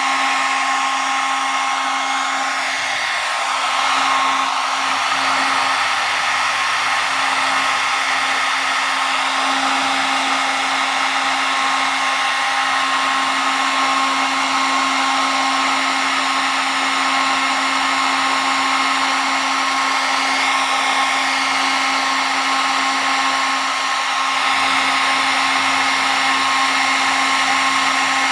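Hair dryer blowing steadily, an even rush of air with a constant motor hum and whine.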